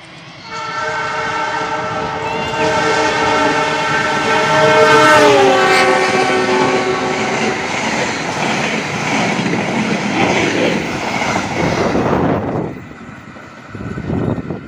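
Diesel locomotive of the Lodaya passenger train sounding a long horn of several notes at once as it approaches at speed, the notes dropping in pitch as it passes about five seconds in. The coaches then rush past with steady wheel and rail noise, which falls away suddenly near the end.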